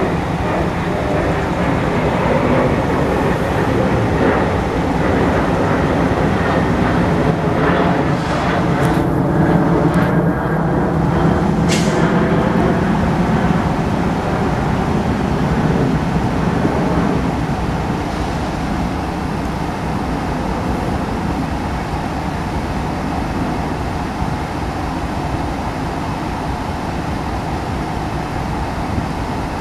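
BNSF diesel locomotives running as they slowly pull a grain train past, with engine pitch slowly shifting. It is loudest while the locomotives go by and eases a little in the second half as the covered hopper cars follow.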